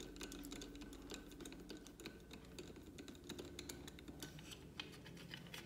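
Faint, irregular light clicks and ticks of fingers working a plastic throttle position sensor cover loose on a motorcycle throttle body.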